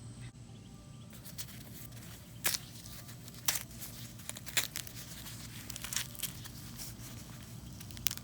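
Dry corn husks and leaves rustling and crackling while ears of corn are handled, with several sharp snaps spread through.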